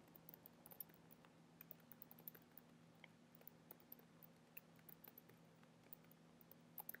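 Faint computer keyboard typing: irregular, quick soft key clicks, over a faint steady low hum.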